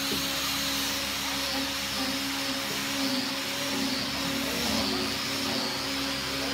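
Corded electric power tool running steadily: a motor whine over a whirring rush, its pitch wavering slightly a few seconds in.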